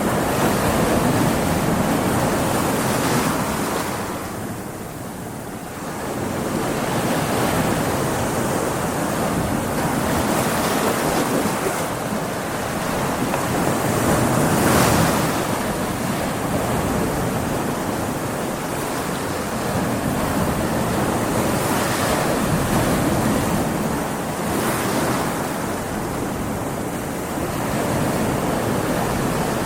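Rough sea surf: waves breaking and washing in a continuous rush that swells and ebbs, with a brief lull about five seconds in and a stronger surge around the middle, mixed with wind.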